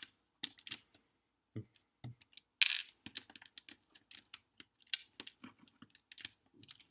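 LEGO plastic pieces clicking and clattering as they are handled and sorted, a string of irregular sharp clicks with one louder clatter about two and a half seconds in.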